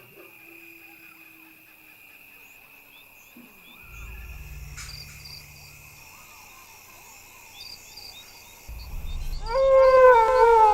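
Jackal howling: one loud, wavering wail that falls slightly in pitch, starting near the end. Under it runs a steady high drone of insects.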